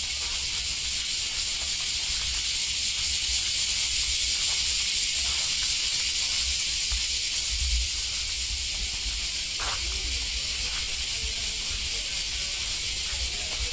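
Steady high hiss with an uneven low rumble underneath and faint, scattered voices in the background.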